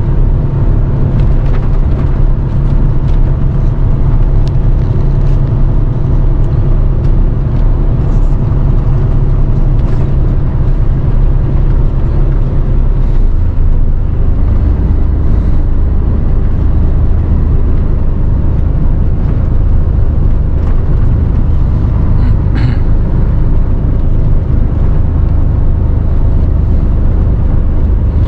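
Mercedes-Benz Actros 510 hp lorry's straight-six diesel engine running under way, heard inside the cab with steady road and tyre noise. About thirteen seconds in, the engine note drops lower and stays there.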